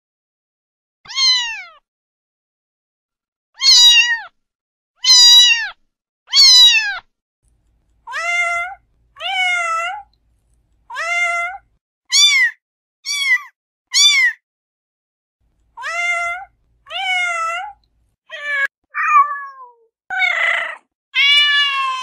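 Domestic cat meows repeated about fifteen times, each under a second long, with short silent gaps between them. The first few fall in pitch at their ends, and a few near the end sound rougher.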